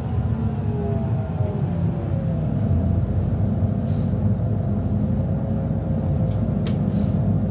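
City bus heard from inside the passenger cabin while driving: a steady low engine and road rumble, with a drivetrain whine that slides down in pitch and then settles. A couple of light clicks come about four and about seven seconds in.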